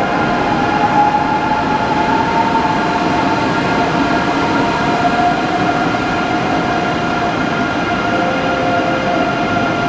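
ICE high-speed train moving out along the platform, its rolling noise mixed with a steady whine of several held tones.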